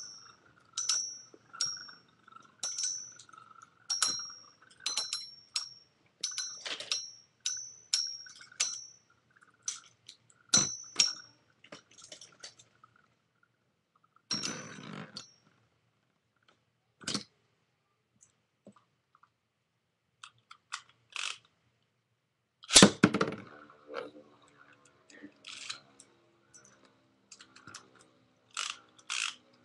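Rock Leone and Dark Wolf Beyblade metal spinning tops clashing in a plastic stadium: sharp metallic clinks about twice a second over a steady whir, the hits thinning out after about twelve seconds. A louder rattling clatter comes a little over two-thirds of the way through.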